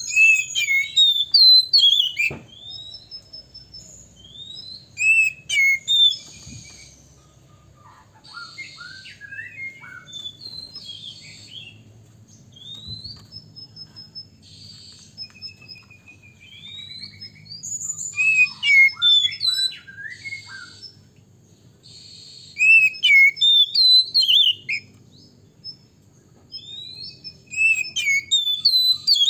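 Male Oriental magpie-robin singing a long, varied song of clear whistles, chirps and rising and falling notes, with loud flurries every few seconds and softer phrases between.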